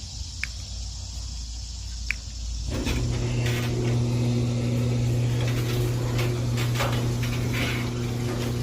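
Electric garage door opener: a couple of small clicks, then about three seconds in the motor starts with a steady low hum and runs on while the door travels, with scattered rattles and clicks from the door.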